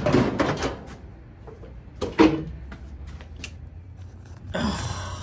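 Samsung dryer's sheet-metal cabinet parts being handled after the screws come out: scattered clicks and knocks, a louder clunk about two seconds in, and a scraping rustle near the end.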